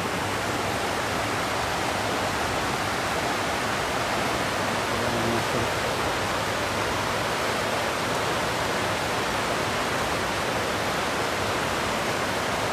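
Steady rushing of a shallow river flowing over stones.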